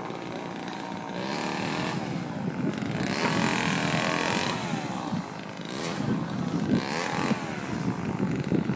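An engine running and revving, its pitch rising and falling several times.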